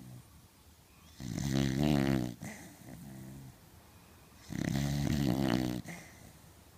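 Cocker spaniel snoring in its sleep: two snores, each about a second long and about three seconds apart, with a softer breath between them.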